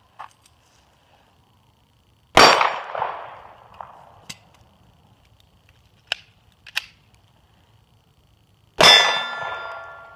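Two 9mm pistol shots from an H&K P30L, about six seconds apart, each followed by steel targets ringing as they are hit; the second ring is the clearer and longer. Between the shots come a few short, sharp metallic clicks from the reload as the empty magazine is swapped for a full one.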